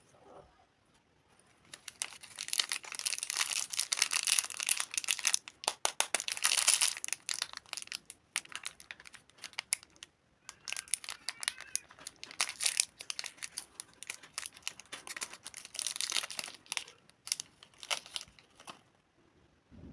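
Plastic candy wrapper being crinkled and torn open by hand: a dense run of crackling that starts about two seconds in, eases briefly twice in the middle, and stops just before the end.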